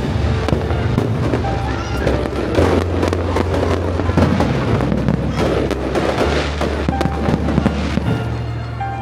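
Aerial firework shells bursting in quick succession, with many overlapping bangs and crackles. Music with a steady bass line plays underneath, its bass note changing a few times.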